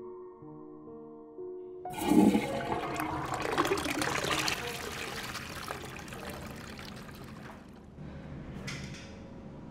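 A toilet flushing: a sudden rush of water about two seconds in, loudest for the next two or three seconds, then fading to a softer steady hiss as the cistern refills. Soft piano music plays before the flush, and near the end there is a brief scrape as a stall door latch is slid.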